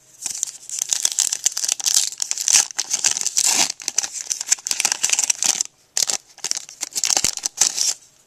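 Trading-card pack wrapper from a 2008 Upper Deck Timeline box being torn open and crumpled: a dense crinkling crackle that stops briefly a couple of seconds before the end, then starts again.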